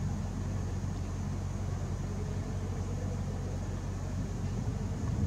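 A steady low hum with a faint rumble under it, swelling slightly at the very end.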